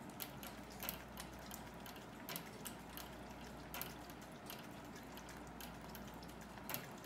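A Shih Tzu drinking from a hamster-style gravity water feeder: irregular wet clicks and drips as it licks at the feeder's nozzle, roughly one a second, with the loudest near the end.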